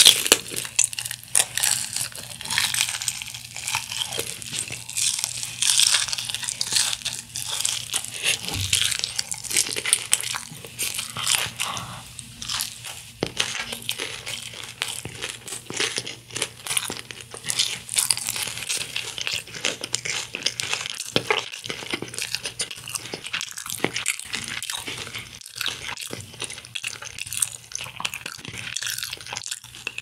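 Close-up eating sounds of crispy Kyochon Honey Combo fried chicken being bitten into and chewed: a bite right at the start, then a dense run of crackly crunches and smacking chews.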